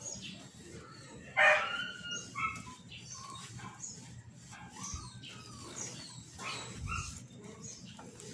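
A dog yelps once, a short high cry about a second and a half in.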